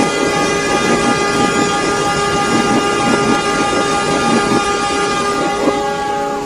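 Multi-tone train horn held steadily for about six seconds over the rumble and clatter of a moving train. The horn stops shortly before the end.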